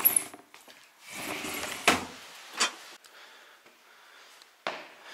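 A sliding window rumbling along its track, once at the start and again for about a second, the second slide ending in a sharp knock as it stops; then a couple of lighter knocks.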